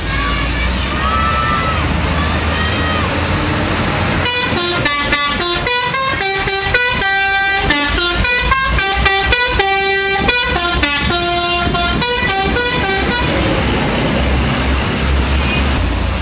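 Telolet multi-tone air horn on a Garuda Mas SHD bus playing a long melody of quick stepping notes, starting about four seconds in and stopping about three seconds before the end. A low engine rumble and street noise lie under it and carry on before and after the tune.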